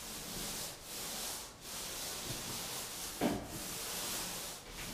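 Repeated rubbing strokes of a hand tool over drywall, each stroke a hiss lasting about a second with short breaks between, and a light knock about three seconds in.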